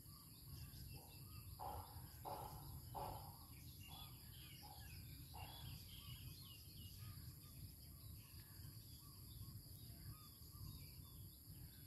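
Quiet countryside ambience near silence: faint scattered bird chirps over a steady high insect drone and a low steady rumble.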